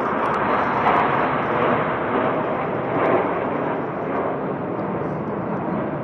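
Steady rushing jet noise of a low formation of military fighter jets, F-16 Fighting Falcons and F/A-18 Hornets, passing overhead.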